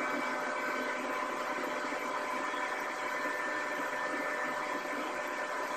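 Steady hiss with a few faint high steady hum tones: the background noise of a low-quality interview-room recording.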